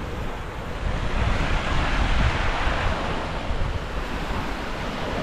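Small waves washing up onto a sandy beach, the surf swelling about two seconds in, with wind buffeting the microphone.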